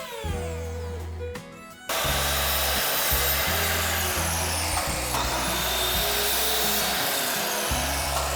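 Handheld electric power tool winding down and stopping, then about two seconds in starting again and working wood with a loud, steady grinding noise. Its high whine falls slowly, jumps back up about halfway through, then falls again.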